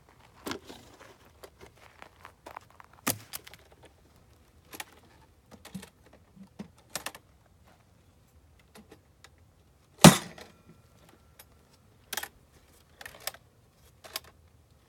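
Scattered clicks, taps and rattles of beekeeping equipment being handled, with one sharp knock about ten seconds in, followed by a faint brief ring.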